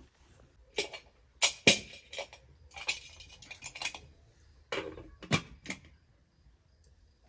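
Metal pot lid clinking and clattering against a metal cooking pot as it is handled and set on: a string of sharp metallic knocks, the loudest a little under two seconds in, and a last cluster of three near the middle.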